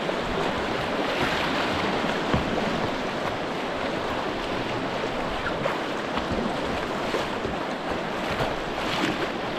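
Rushing white water of a river rapid: a steady hiss of moving water, with a few brief splashes.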